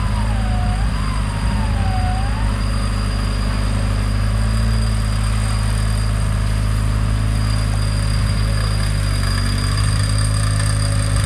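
Off-road 4x4 vehicle's engine running steadily at an even, low pitch with no revving.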